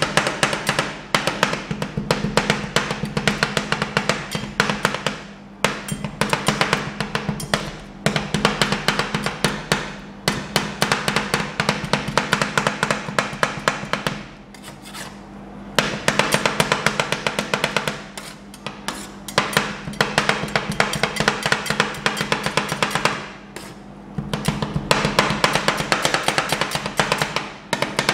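Two metal spatulas chopping and tapping rapidly on a frozen stainless steel ice-cream pan as sweet corn is cut into the cream base. The strikes come in quick runs of a few seconds with short pauses, over a steady low hum.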